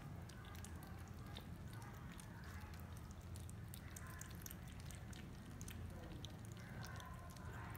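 Kittens eating raw minced meat, with many quick wet clicks and smacks of chewing over a steady low hum.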